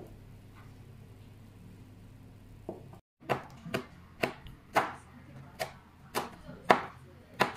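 Knife chopping century egg on a plastic cutting board. The first three seconds hold only a few faint cutting taps, then sharp chops come at about two a second.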